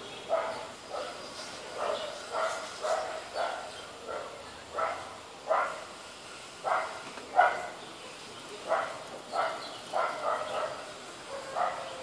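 Short, sharp animal calls repeated over and over, roughly one or two a second with uneven gaps, about seventeen in all; the loudest comes a little past the middle.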